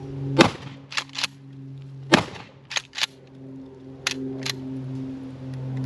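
Gunshots on a shooting range: two loud shotgun blasts about 1.7 seconds apart, with several fainter shots between and after them. A steady low hum runs underneath.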